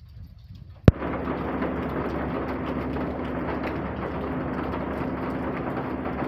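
A sharp click about a second in, then a steady rush of rain with a faint low hum under it.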